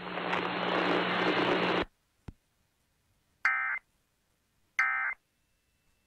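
Emergency Alert System end-of-message data bursts over FM radio: about two seconds of hiss with a low hum that cuts off sharply, a click, then two short buzzy data bursts about 1.4 seconds apart that mark the close of the severe thunderstorm warning.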